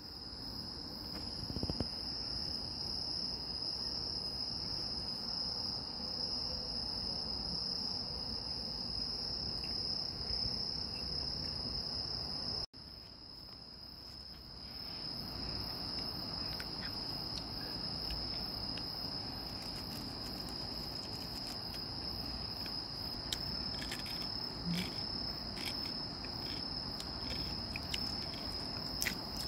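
Night insects, crickets, trilling in a steady high-pitched chorus. The chorus cuts off sharply about halfway through and comes back. A few light clicks sound near the end.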